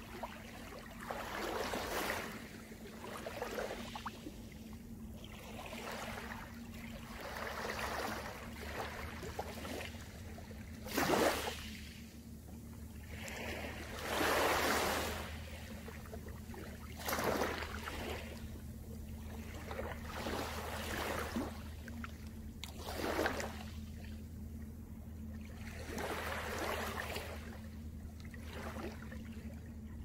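Small waves of a calm sea lapping and washing up on a pebble beach, a soft swell of surf every two to three seconds, with a few stronger washes now and then.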